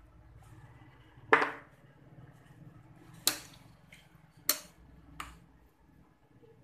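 Glass bowl knocking and clinking four times as it is handled, while wet grated coconut is worked in it to make coconut milk; the first knock is the loudest.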